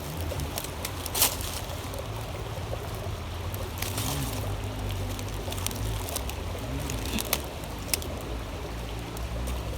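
Creek water running steadily, with a few sharp clicks.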